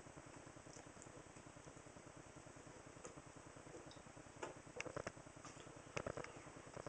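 Quiet swallowing as a man chugs beer from a large glass bottle, over a faint, even ticking background. Two short, louder sounds come about four and a half and six seconds in.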